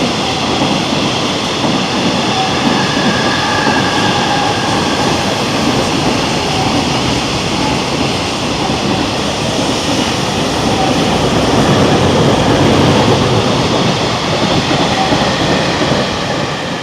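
Freight train rolling past on the rails, a long steady rumble and clatter of wagons with faint thin whining tones, loudest about twelve seconds in.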